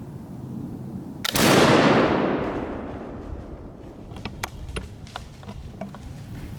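Flintlock muzzleloader firing: a brief snap of the priming pan, then the main charge going off a split second later, its boom rolling away over about a second and a half. Faint scattered snaps follow.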